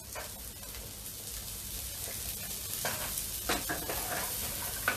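Garlic, red onion and freshly added spring onions frying in chili oil in a frying pan: a steady sizzle, with a wooden spoon stirring and scraping the pan, giving a few short knocks in the second half.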